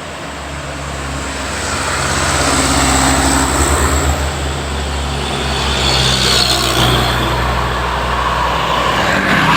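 A tour bus's diesel engine running as the bus drives past close by, with road noise; the engine hum grows louder over the first few seconds and then holds steady.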